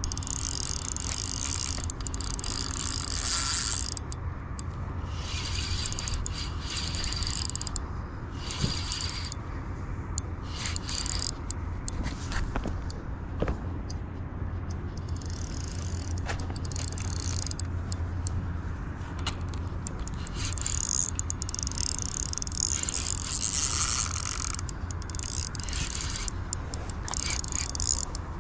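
Spinning reel being cranked in several stretches of a few seconds each, its gears whirring, as a hooked fish is reeled in. A low steady rumble runs underneath.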